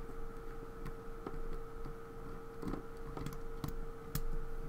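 Irregular light metallic clicks and taps of small tools working on a lock during disassembly, freeing a spring-loaded part from the core, over a steady faint hum.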